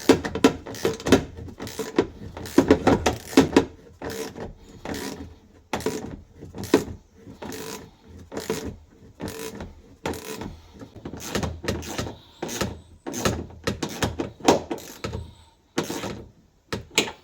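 Irregular clicks and knocks of hand tools and fasteners as the rear seat box is bolted down, the strokes coming thick in the first few seconds and more sparsely after.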